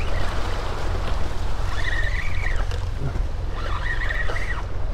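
Steady low rumble and water noise on a small boat on open water, with wind on the microphone. Two short high tones, each under a second, come about two seconds and four seconds in.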